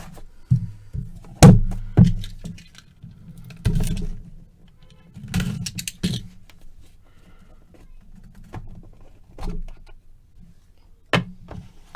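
Irregular knocks, thumps and clicks of card boxes and packaging being handled and set down on a table, the loudest about a second and a half in.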